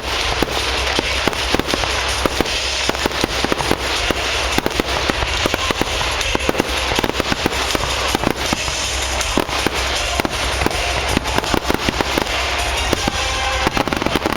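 Fireworks display: a rapid, unbroken barrage of bangs and crackles, many reports a second.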